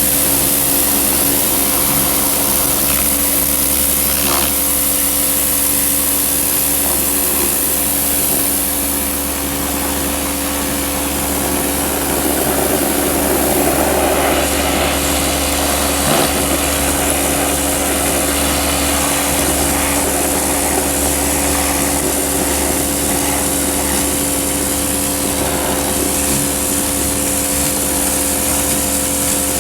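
Pressure washer running steadily, its motor humming under a loud hiss of spray as detergent is rinsed off a PVC floor tile.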